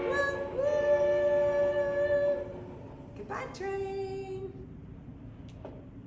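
Mock train whistle answering the call to blow the whistle again: a long held whistle note, then a shorter, lower and quieter one about three seconds in.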